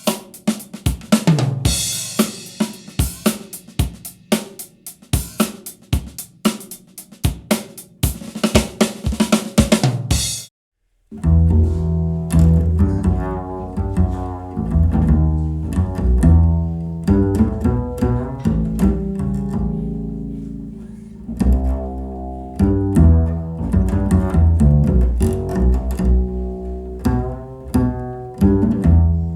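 Recorded music played through a compact nearfield studio monitor. First comes a busy drum-kit passage of snare, hi-hat and cymbal hits. It cuts out abruptly about ten seconds in, and after half a second a deep plucked bass line with other instruments takes over.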